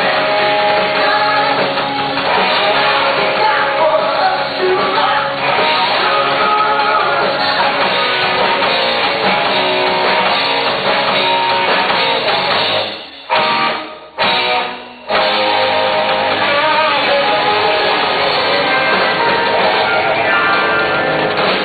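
Live rock band playing a song with singing and guitar. About two-thirds of the way through the music breaks off and comes back in a few short stop-start hits, then carries on.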